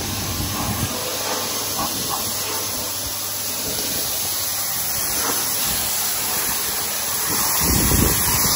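Pressure washer jet spraying onto mossy stone paving, a steady hiss that grows louder near the end.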